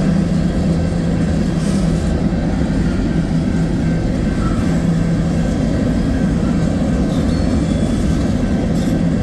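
Freight train of open-top hopper cars rolling steadily through a grade crossing: continuous rumble of steel wheels on the rails with a steady low hum.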